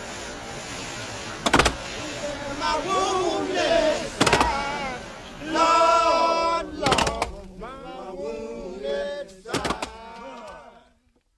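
Voices with held, gliding pitches, with four sharp knocks about two and a half seconds apart; all of it stops shortly before the end.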